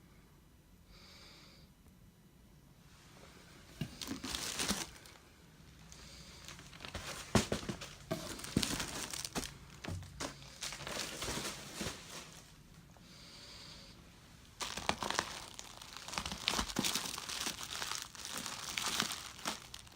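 Packing material being handled and crumpled during an unboxing: irregular crinkling and rustling in bursts, starting about four seconds in, with a short lull a little past the middle before it picks up again.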